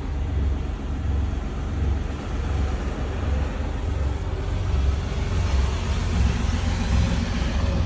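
Semi-truck running on the road, heard from inside the cab: a steady low engine rumble with road noise.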